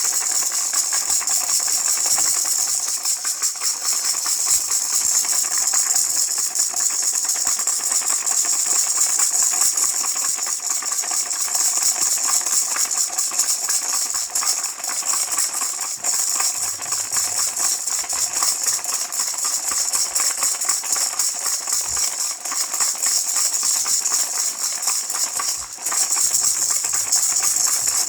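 Baby rattle shaken without a break, a dense, fast, steady rattling of the pieces inside, with a short dip about 25 seconds in.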